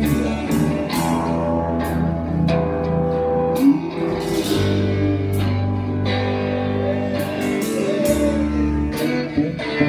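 Live band playing: electric guitar over bass and drums, with regular drum and cymbal hits.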